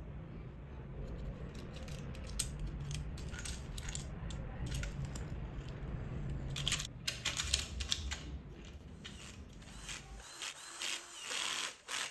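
Small metal hardware clicking and clinking as bolts and a castor mounting plate are handled and tightened onto aluminium extrusion with a hand driver. Near the end a cordless screwdriver briefly whirs, driving a screw.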